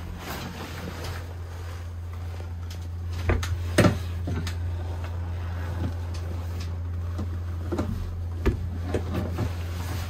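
A steady low hum of running onboard equipment, with several knocks and bumps from handling things in a compartment; the loudest are a pair of knocks just before four seconds in.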